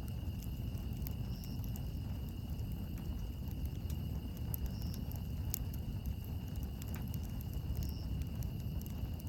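Campfire crackling, with scattered sharp pops and snaps over a steady low rumble, and a steady high thin tone underneath.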